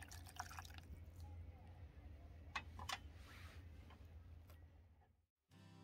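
Hot broth, likely instant ramen, pouring from a metal pot into a bowl and trickling to a stop in the first second. A few light clicks follow over a faint low hum.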